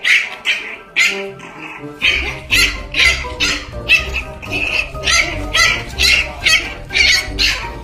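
Puppy yapping with short, high-pitched yelps, about twice a second, over background music with a steady beat.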